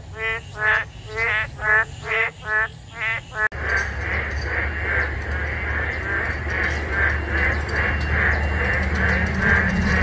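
Boreal digging frogs (Kaloula borealis) calling. At first it is separate rising calls, about two a second. A few seconds in it changes to a denser chorus of many frogs calling over one another, with a steady low rumble beneath.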